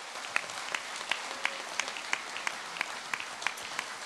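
Audience applauding in a hall, with a regular beat of claps standing out, about three a second.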